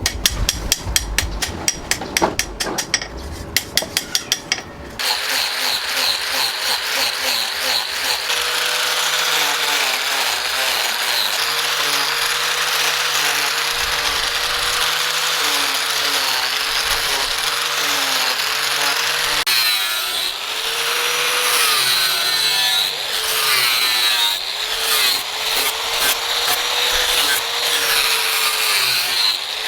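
A few seconds of sharp, irregular taps. Then, about five seconds in, a power tool abrading material starts and keeps running steadily, its motor pitch wavering and dipping as it is pressed into the work.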